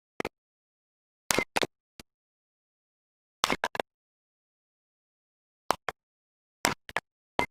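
Axe chopping wood: sharp, short chops in irregular clusters of one to three strikes, with silence between them.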